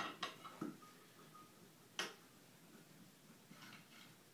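Faint metallic clicks and taps of an aluminum straightedge bar being worked into place between a snowmobile's clutch sheaves. There are a few quick clicks at the start and one sharper click about two seconds in.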